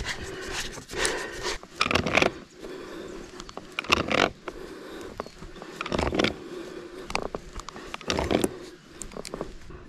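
Plastic nut of a poly pipe compression fitting being tightened by hand and with a fitting wrench: a string of short scraping, creaking strokes, each a second or two apart.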